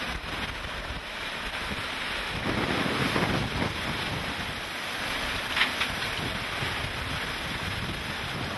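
Hurricane wind and rain, a steady rush that swells in a gust a few seconds in, with wind buffeting the microphone. Two short sharp taps come a little past the middle.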